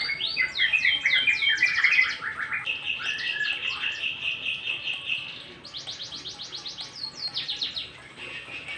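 White-rumped shama (murai batu) song: fast runs of repeated down-slurred whistles, then a long even rattling trill from about three seconds in, then more quick down-slurred runs.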